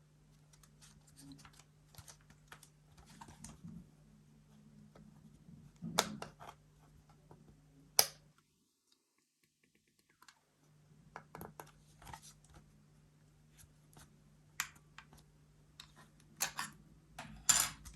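Irregular plastic clicks and taps from a compact wireless keyboard being handled and its keys pressed, with a few sharper snaps. A low steady hum sits under it, and everything drops out for about two seconds midway.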